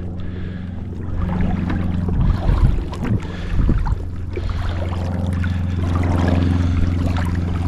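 Shallow river water sloshing and splashing as a wader pushes a stick of driftwood through it to drive whitebait toward the net, the splashes strongest a couple of seconds in, over a steady low rumble.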